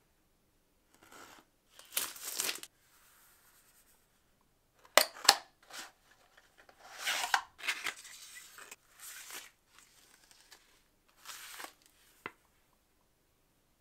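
Product packaging being handled and opened: irregular bursts of rustling and tearing, with two sharp clicks about five seconds in and another near the end.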